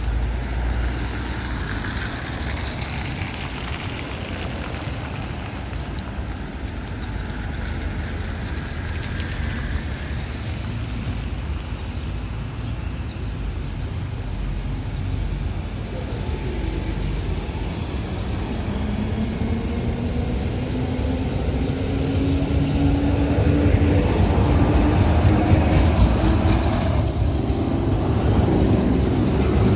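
LVS-97K articulated tram approaching and pulling into the stop over steady street noise. Over the last ten seconds or so its whine rises in pitch and it grows louder as it comes alongside.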